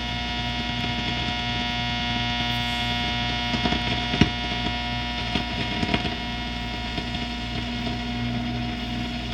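Norelco Bi-Ampli tube radio tuned to the empty longwave band, giving a steady hum made of many held tones, with a few crackles about halfway through. The hum is taken for interference.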